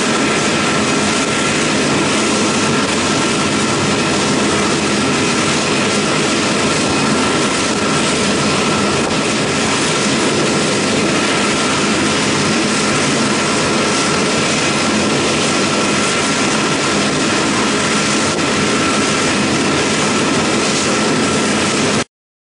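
Air France Airbus A380's four Engine Alliance GP7200 turbofans running at taxi power as the airliner rolls past: a steady jet rush with a thin whine over it. It cuts off suddenly near the end.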